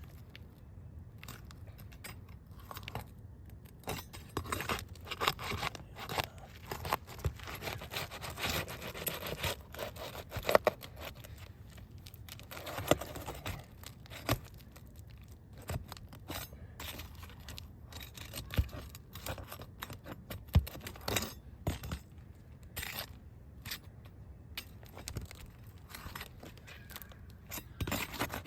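Roof shingles being pried up and torn loose: irregular scraping and tearing with sharp knocks and clicks.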